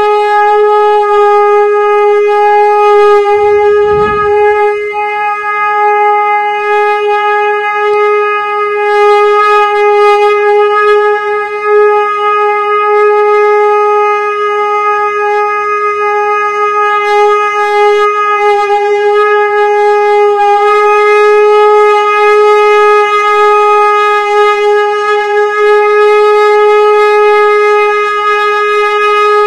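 Conch shell (shankh) blown in one long unbroken note, held at a steady pitch with a bright ladder of overtones.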